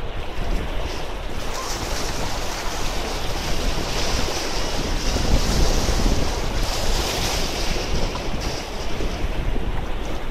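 Small sea waves washing and splashing against the rocks of a jetty, swelling to the loudest splash about halfway through, with wind buffeting the microphone.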